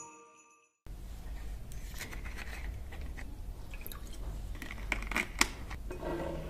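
A bottle of drinking water is handled and poured into a glass: crinkling and clicking of the bottle, and a sharp knock about five and a half seconds in as the bottle is set down on the table. The tail of the intro music fades out in the first second.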